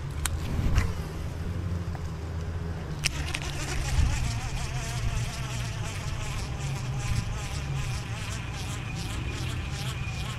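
Insects buzzing close by over a low steady rumble, with a few sharp clicks near the start and one about three seconds in.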